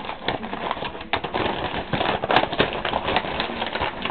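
Cardboard shipping box flaps and the paper catalogs inside being handled: rustling and scraping with scattered sharp knocks and taps.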